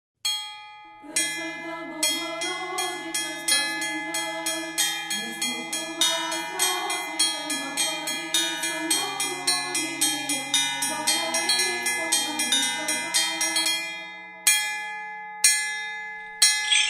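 Church bells rung in a fast, even rhythm with a wavering lower melody beneath, as opening theme music. Near the end the ringing thins to a few single strokes.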